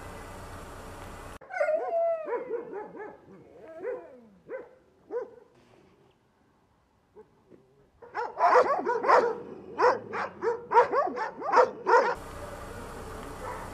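Shelter dogs yelping and whining, each cry falling in pitch. After a near-silent gap of about two seconds they break into rapid barking, about three barks a second. A steady hiss runs before the dogs start and comes back near the end.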